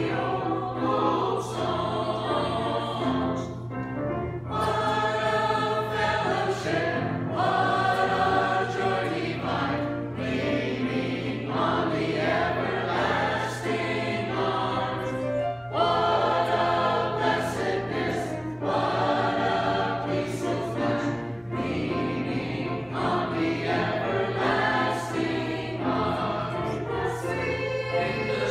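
Mixed church choir of men's and women's voices singing together, in phrases with short breaks between them.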